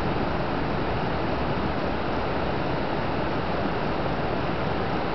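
A river after hurricane flooding, its water rushing steadily over rocks below a bridge.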